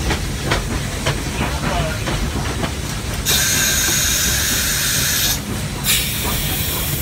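Steam locomotive cab: a loud hiss of escaping steam or air at the controls, lasting about two seconds, breaking off briefly, then starting again, over a steady low rumble from the locomotive.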